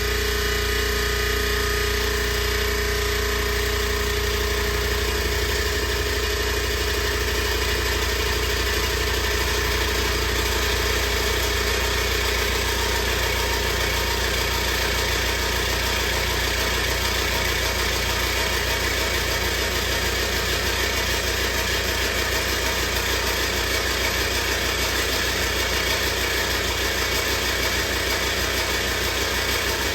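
Electric cabinet unit heater's newly replaced blower motor and fan wheels running steadily on a test start, with one fan wheel rubbing and scraping against its fan housing because it is out of adjustment.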